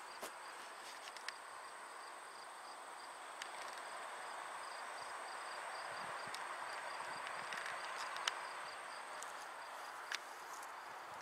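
Summer insects calling: a steady high buzz with a rapid, regular pulsing chirp alongside it. A soft hiss swells through the middle, and a few sharp clicks stand out, the loudest about eight seconds in.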